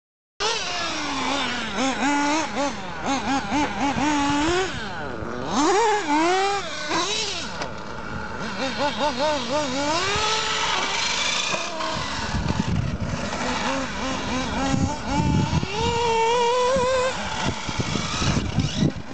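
Several radio-controlled model cars racing, their motors whining and sweeping up and down in pitch as the throttle is worked. Low rumbles join in from about twelve seconds in.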